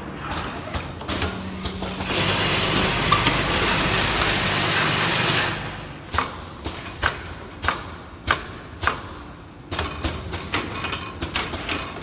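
Automatic CTO carbon block filter packing machine running: its pneumatic cylinders and fixtures clack and knock again and again. About two seconds in, a loud steady machine hiss with a low hum starts and cuts off about three and a half seconds later.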